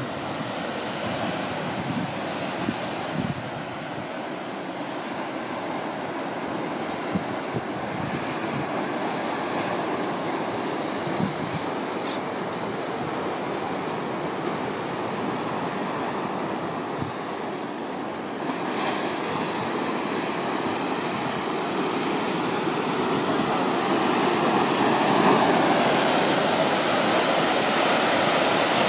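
Heavy ocean surf breaking against limestone sea cliffs, a steady rushing noise that grows louder near the end.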